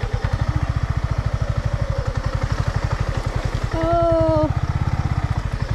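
Motorcycle engine running steadily under way, a fast even low pulsing of its exhaust beats.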